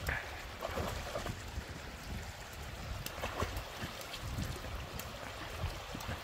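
Shallow stream running over stones, with short sharp splashes as a dog wades and lunges at salmon in the water.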